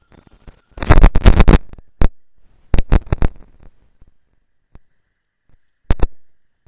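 Dry leaf litter crackling and rustling very close to the microphone as an animal moves and scratches right in front of a trail camera. A dense, loud burst of crackles comes about a second in, then scattered sharp ticks, with a cluster near the middle and a pair near the end.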